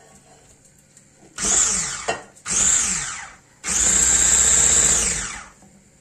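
Electric hand mixer whisking thick cake batter in a bowl, switched on in three bursts, the last one the longest. Each burst falls in pitch as it dies away.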